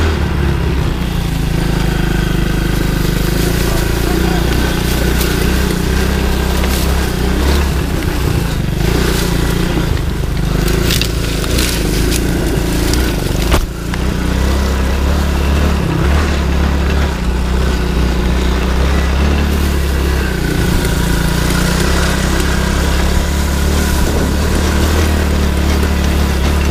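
TAO Motor youth ATV's engine running steadily under way over rough ground, with a brief knock about halfway through.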